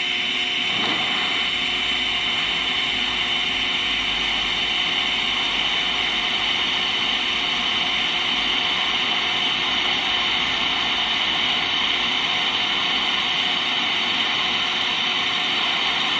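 Steady whirring hiss of a DC TIG welding setup running through a weld pass on steel without filler rod.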